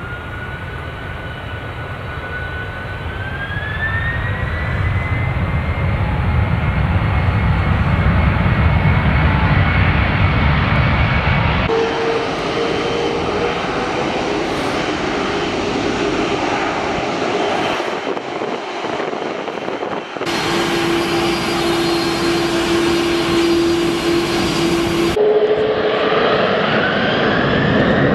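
Jet airliner engines: a whine rising in pitch as they spool up over a deep rumble that grows louder, then abrupt switches to other engine recordings with a steady hum, about twelve, twenty and twenty-five seconds in. Near the end the whine rises again.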